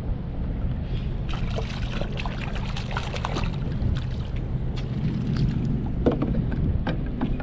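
Wind rumbling on the microphone of a kayak on open water, with a scatter of small clicks and light splashes from about one second in until near the end.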